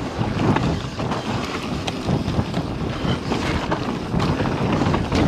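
Wind buffeting the camera microphone over the rush of mountain bike tyres on a dirt trail at speed, with scattered clicks and knocks from the Scor 4060 ST bike over the bumps.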